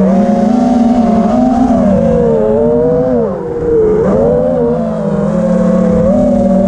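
FPV quadcopter's brushless motors and propellers whining in flight, the pitch rising and falling with the throttle. The throttle eases off briefly about three and a half seconds in, the whine dropping in pitch and level, then comes back up.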